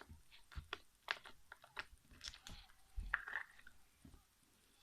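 Slime being stretched and squeezed by hand: faint, irregular sticky clicks and small squelching crackles.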